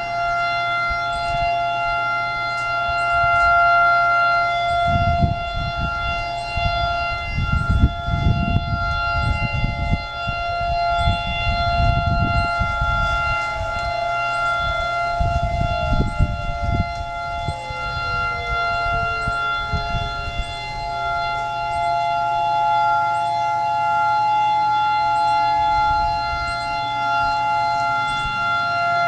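Hawaii outdoor tsunami warning sirens sounding a steady, piercing tone during the monthly test signal; the nearest siren is still going after the 30 seconds it should have stopped at. About halfway through, one of the tones slides slowly down in pitch while the steady tone carries on.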